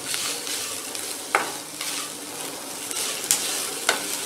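Grated coconut sizzling as it is sautéed dry in a stainless-steel kadai, being fried until it turns brown, with a wooden spatula stirring through it. A few sharp knocks of the spatula against the pan, three of them louder.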